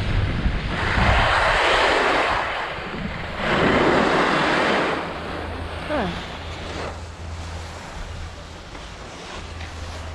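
Skis scraping over packed snow in two long swishes, the second about three and a half seconds in as the skier slows to a stop, with wind buffeting the microphone.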